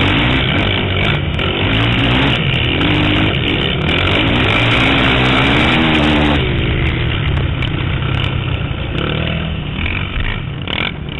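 Quad ATV engine running at racing speed, its pitch rising and falling with the throttle for the first six seconds, then easing off and a little quieter.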